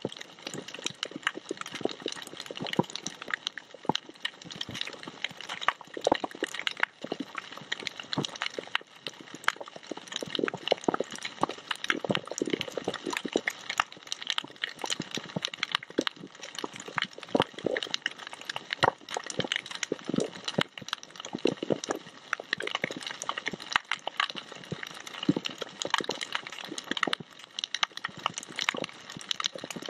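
Underwater coral-reef crackle: a dense, irregular patter of sharp clicks and pops with no letup, the sound of snapping shrimp on the reef.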